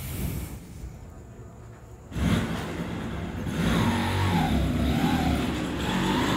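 A motor vehicle's engine running, coming in loud about two seconds in, with its pitch rising and falling.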